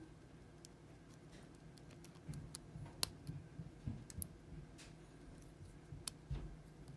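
A steel lock pick working the pins of an old brass WB padlock under heavy tension: scattered light clicks and ticks, two sharper ones about three and six seconds in, with soft bumps from the lock being handled.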